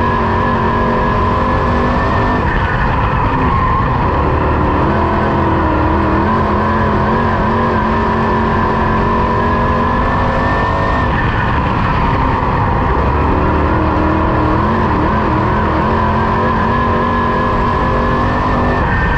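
Onboard sound of a dirt-track Sportsman race car's engine at racing speed, loud and steady, with road and wind noise. Its note sags and climbs back twice, about two seconds in and again about eleven seconds in, as the driver lifts for the turns and gets back on the throttle.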